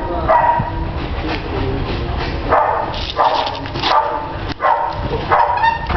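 Belgian Malinois barking repeatedly at a decoy in a bite suit, a steady run of short barks about one or two a second, as the dog guards and holds the decoy in a French Ring exercise.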